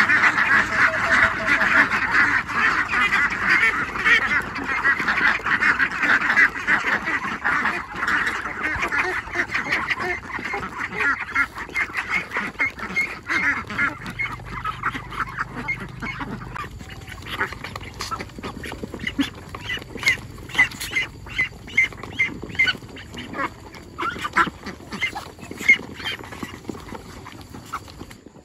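A flock of domestic ducks quacking loudly as they crowd around feed at feeding time. The chorus is dense for about the first ten seconds, then thins into separate, spaced quacks.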